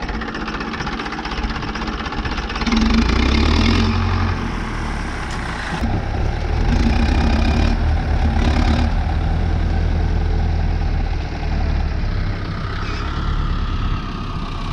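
Tractor diesel engines running hard under load as they strain to pull a trailer out of deep mud, getting louder a few seconds in and again around the middle.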